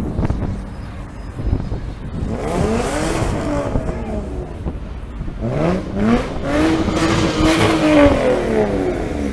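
A car engine revving twice, its pitch climbing and then falling back each time. The second rev is longer and held near the top before dropping.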